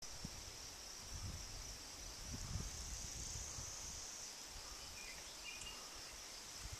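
Outdoor country ambience: a steady high insect drone, low wind rumbles on the microphone a couple of times in the first few seconds, and a couple of brief high chirps a little past the middle.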